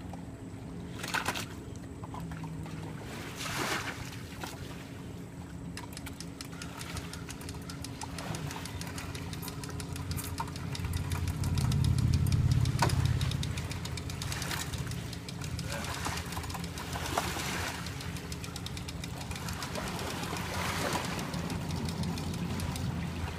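A steady low engine hum, swelling louder about halfway through, with water sloshing and a few short knocks as a jet ski is lifted out of the water on a lift.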